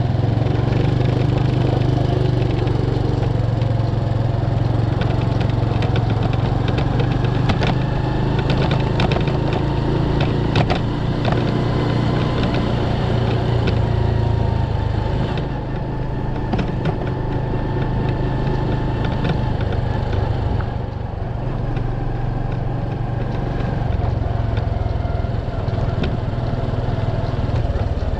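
Motorcycle engine running steadily as the bike rides along, a low, even engine hum heard from on the bike with road noise mixed in; the engine note eases a little about halfway through.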